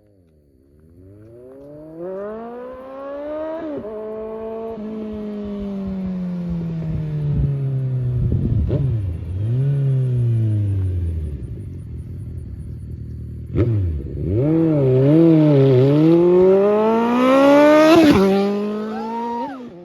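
Suzuki Bandit 1250 inline-four motorcycle engine revving up hard, its note climbing, then dropping and falling away slowly. About two thirds of the way in it climbs again to its loudest near the end before falling off.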